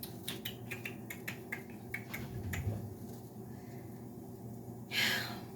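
Water crackling and popping in a hot skillet as it boils off, a run of irregular sharp pops over the first few seconds, then a short hiss near the end.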